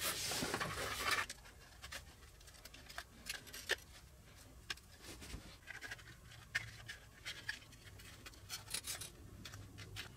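Hands handling crystal radio kit parts, fitting the cardboard tuner coil tube into its housing: a rustling scrape in the first second, then scattered light clicks and scratches.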